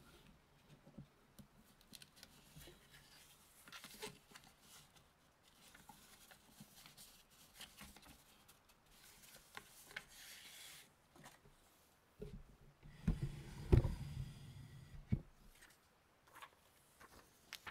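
Hands rubbing and massaging close to the microphone: soft, scattered rubbing with light clicks, and a louder, deeper rubbing stretch from about 12 to 15 seconds in.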